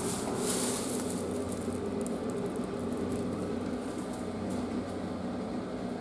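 Steady ventilation fan hum in a small restroom, with a brief light rustle of handling noise about a second in.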